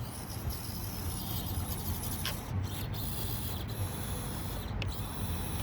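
Tiny electric motor and gears of an Axial SCX24 micro crawler whirring in stretches under throttle, cutting out briefly a few times, over a steady outdoor rumble.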